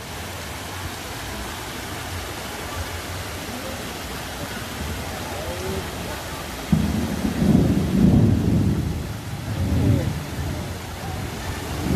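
Heavy rain with runoff water rushing over rocks and earth. About halfway through, a loud low rumble of thunder comes in and rolls unevenly for several seconds.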